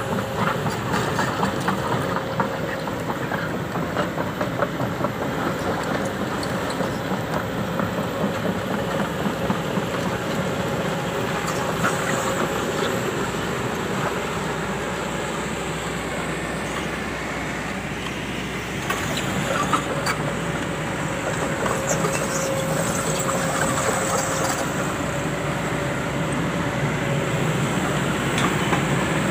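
Kobelco SK200 excavator's diesel engine idling with a rapid, even clatter and a steady whine.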